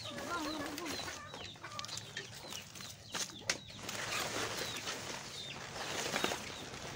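Backyard chickens clucking, with the rustle of taro stalks and large taro leaves being gathered by hand and a few sharp clicks a little past three seconds in.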